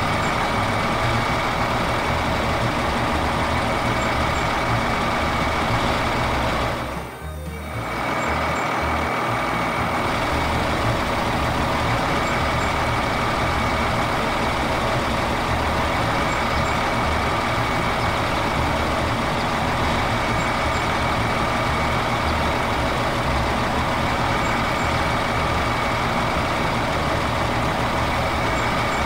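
Tractor engine sound effect running steadily, with a brief dip about seven seconds in.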